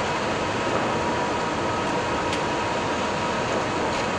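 Steady rush of engine and airflow noise on an Airbus A340-600 flight deck during the takeoff run at takeoff thrust, with a faint steady whine over it.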